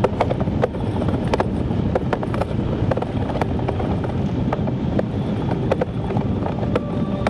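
Iceboat runners skimming across black ice: a steady rumble with frequent irregular sharp clicks.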